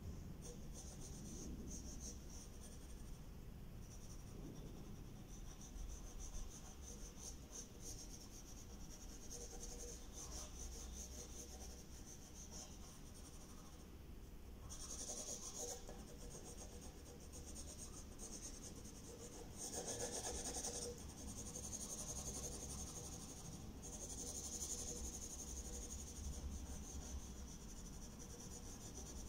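Pencil scratching and rubbing on paper in a run of drawing strokes, faint, with louder spells of strokes about halfway through and again later on.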